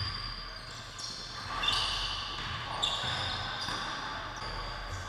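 Several short, high sneaker squeaks on a hardwood gym floor and a basketball bouncing during full-court play, echoing in a large gym.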